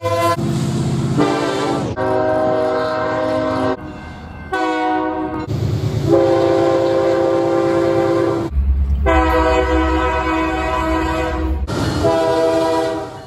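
Diesel locomotive air horns sounding: about six different steady chord-horn blasts cut one after another, each changing abruptly to the next, over the low rumble of the passing trains.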